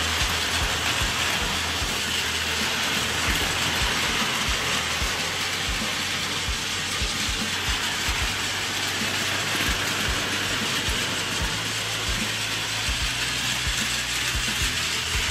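Battery-powered Plarail toy Shinkansen trains running at high speed on blue plastic track: the steady whir of their small motors and gearboxes, with irregular clicks as the wheels cross the rail joints.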